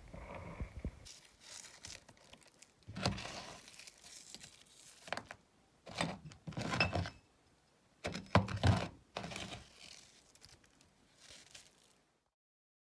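Metal parts of a disassembled meat grinder (auger, ring nut and cutting plate) being handled on a plastic plate covered in crushed lollipop candy, clinking and scraping in several short bursts. The loudest burst comes about eight seconds in, and the sound stops abruptly about a second before the end.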